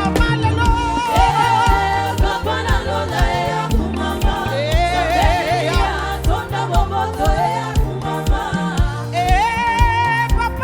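Live gospel praise-and-worship music: a lead voice singing a melismatic line with backing vocals over a band with bass and a steady drum beat.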